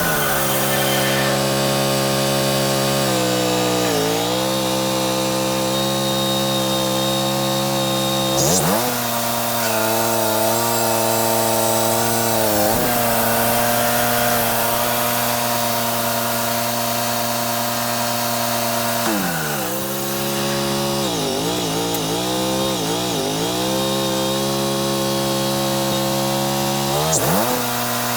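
Wood-Mizer LT35 portable bandsaw mill running, its band blade cutting through a cottonwood log. The engine note holds steady but dips briefly in pitch several times under load, and wavers up and down for a few seconds past the middle.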